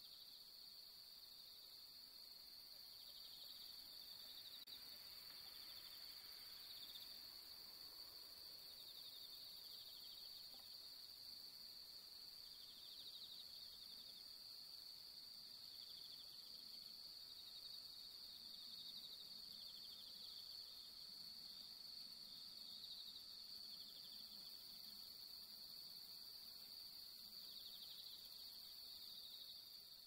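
Japanese bell crickets (suzumushi) singing faintly: a steady high ringing trill, with further bouts of quick pulsed trilling that come and go every few seconds.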